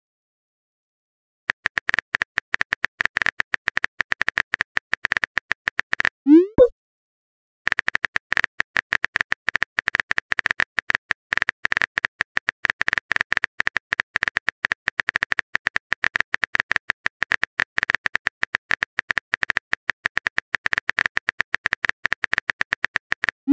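Phone-keyboard typing sound effect: rapid clicks in two long runs, broken about six seconds in by a short rising pop as a message is sent, with another pop at the very end.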